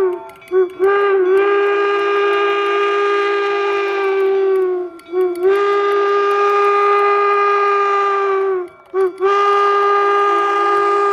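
Steam locomotive whistle blowing a series of loud blasts, one steady note each. It gives three long blasts of three to four seconds, with single and paired short toots between them, and the pitch sags slightly as each long blast ends.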